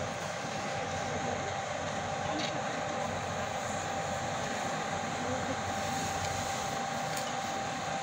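Fire engine running its pump for the hose lines: a steady mechanical roar with a constant tone under it.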